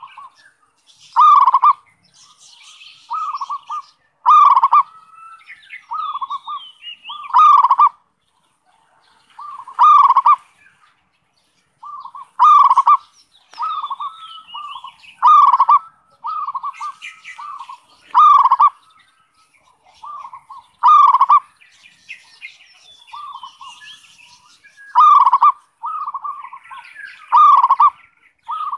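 Zebra dove (perkutut) cooing: phrases of rolling coos, with a loud note about every three seconds and softer quick notes between, and a short pause about a third of the way in.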